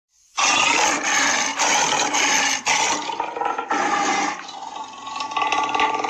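Tiger growl and snarl sound effects: a run of about five harsh, noisy bursts, then a rougher, rasping pitched growl in the second half.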